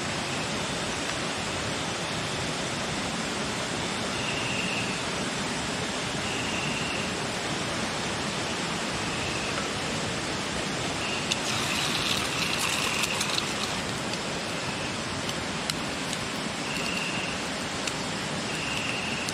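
Steady rush of running water. A short, high, steady call repeats every two seconds or so, and a brief spell of crackling comes about twelve seconds in.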